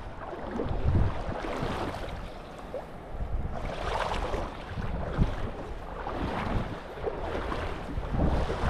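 Wind buffeting the microphone in uneven gusts, a low rumble over the wash of shallow river water.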